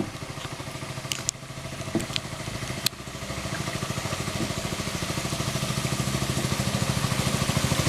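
A small boat's engine running with a fast, steady chugging pulse. It grows steadily louder over the second half as a motorboat approaches along the canal. A few sharp clicks come in the first three seconds.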